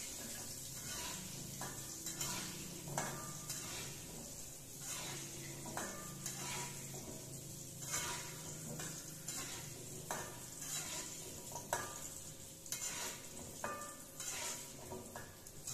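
Battered tempeh (mendoan) sizzling in hot oil in a steel wok, with a slotted metal spatula clinking and scraping against the wok at irregular moments as the pieces are turned.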